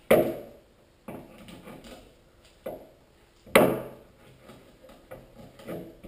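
Hands working duct tape onto a plastic saw scabbard: a series of sharp knocks and taps of the scabbard against a wooden tabletop, the loudest a little past halfway.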